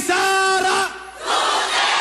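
A voice holds one long, drawn-out shout that falls off at the end, and then a crowd cheers and shouts from about a second and a half in.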